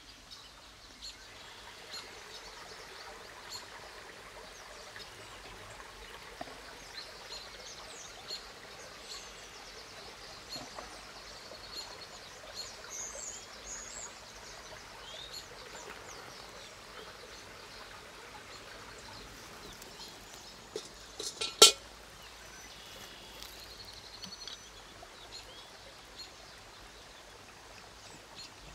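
Forest stream ambience: a soft steady wash of running water with birds chirping and small clicks of food and utensils being handled. A single sharp knock about two-thirds of the way through stands out as the loudest sound.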